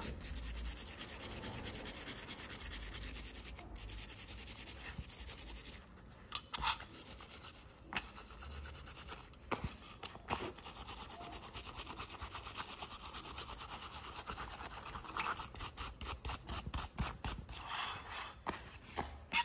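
Steady rubbing on a small hard object, broken about six seconds in by a few sharp taps, then rubbing again and a quick run of clicks near the end.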